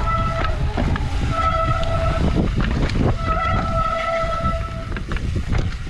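Mountain bike disc brakes squealing, a steady high tone that sounds three times as the brakes are applied, over the low rumble and knocks of the bike rolling down a rough trail.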